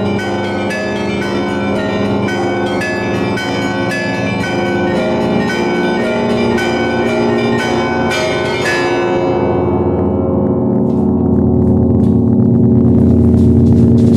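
Russian Orthodox church bells ringing: quick, repeated strikes of small bells over the sustained ringing of larger, deeper bells. About nine seconds in the small bells stop, leaving the deep bells humming on and growing a little louder.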